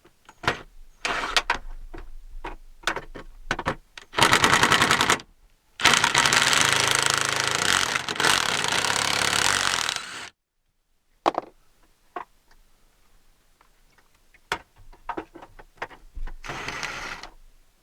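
Cordless impact driver running in short bursts with rapid hammering, backing out the window regulator's bolts, among clicks of metal parts. The longest burst lasts about four seconds in the middle, and a shorter one comes near the end.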